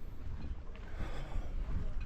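Wind buffeting the microphone: a fluctuating low rumble over a faint outdoor background.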